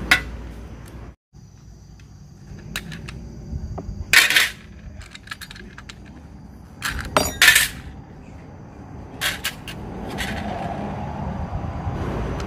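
Hand tools clinking and clattering against metal parts in a string of separate sharp knocks while the carburettor is being taken off a Honda GX50 brush-cutter engine, over a low rumble that swells near the end.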